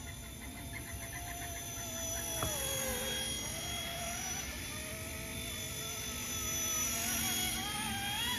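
RC ERA C189 MD500 micro RC helicopter in flight, running on a 7.4 volt lithium-ion battery. Its electric motor and rotor give a steady whine that wavers in pitch as it manoeuvres, dipping about three seconds in and climbing near the end.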